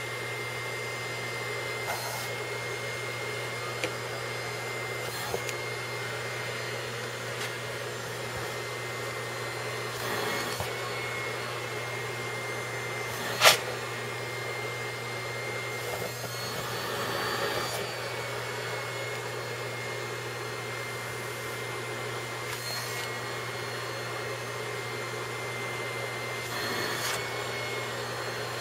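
Vacuum cleaner running steadily, with a constant hum and a thin whine, its sound swelling briefly now and then. A single sharp knock about halfway through.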